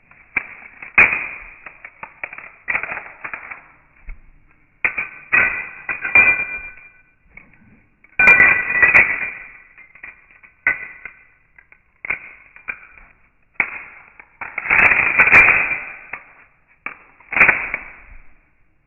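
Glock 17 pistol being field stripped and reassembled by hand: repeated sharp clicks, clacks and sliding metal-and-polymer scrapes as the slide is worked off and back onto the frame, in clusters a second or two apart.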